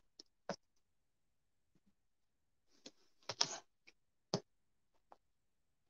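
A few light plastic clicks and soft rustling as a plastic drain valve is worked into the threaded drain hole of a folding bathtub's fabric liner, the sharpest click a little past four seconds in.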